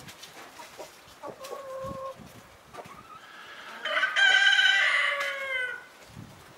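Leghorn rooster crowing: one loud crow of about two and a half seconds whose pitch drops at the end, preceded about a second in by a shorter, steady chicken call.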